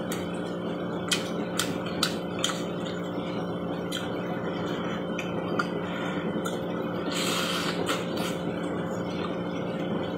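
Mukbang eating sounds: scattered small clicks of chewing and a fork against a bowl of lomi noodles, with one longer slurp of noodles about seven seconds in. A steady background hum runs underneath.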